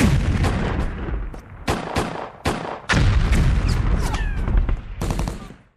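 Battle gunfire: irregular single shots and short volleys over a heavy, continuous rumble of explosions. It starts abruptly and fades out near the end.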